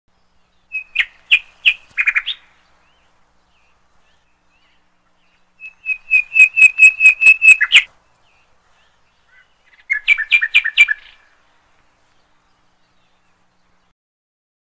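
Bulbul singing in three short bursts of rapid repeated chirps, a few seconds apart, the middle burst the longest and loudest.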